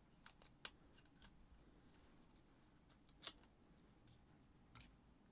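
A few faint, sharp clicks and snips of scissors cutting away tape, the loudest click under a second in.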